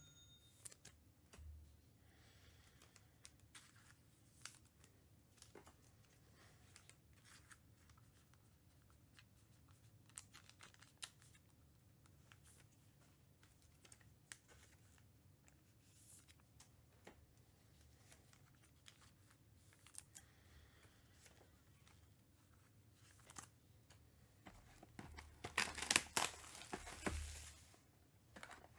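Faint scattered handling clicks, then near the end a few seconds of loud tearing and crinkling as a sealed box of trading cards is torn open.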